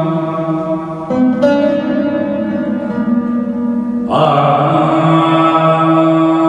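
Live music in a Middle Eastern style: long held melodic notes over a steady low drone, moving to a new note about a second in and swelling into a louder, breathier note about four seconds in.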